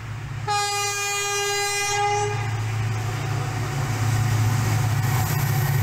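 Diesel locomotive sounding its horn once, a single blast of about two seconds starting half a second in, over the steady low drone of its engine as it approaches.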